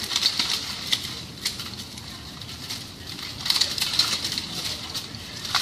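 Steel weapons and plate armour clashing in armoured combat: a few sharp metallic clanks, one about a second and a half in, a quick flurry a little past the middle, and another at the end.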